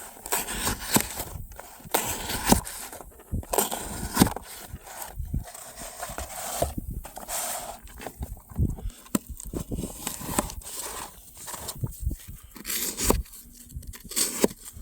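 Hand-forged Damascus hunting knife being tested on materials, cutting and scraping in irregular strokes, with many sharp knocks and clicks.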